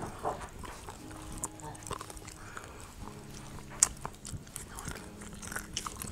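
Close-miked chewing of a seafood and green onion pancake (haemul pajeon): soft wet mouth sounds broken by scattered sharp clicks, the loudest a little past the middle.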